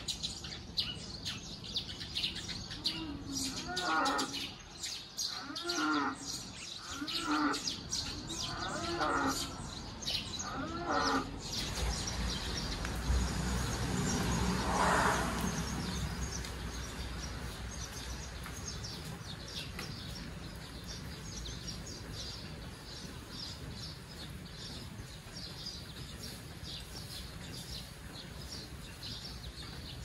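Small birds chirping, with a deeper animal call repeated about once a second for the first ten seconds or so. Around the middle a low rumble swells and fades, leaving a steady outdoor hiss with faint bird chirps.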